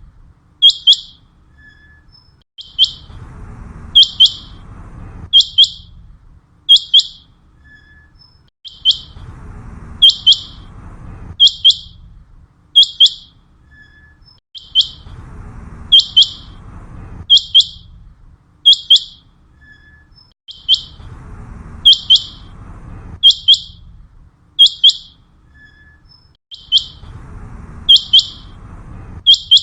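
Common quail calling: its sharp, high three-note phrase given over and over, a group every couple of seconds.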